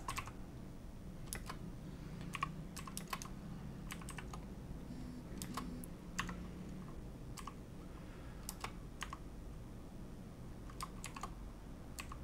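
Computer keyboard keystrokes: single clicks and short runs of clicks, slow and irregular, with pauses of a second or more between them.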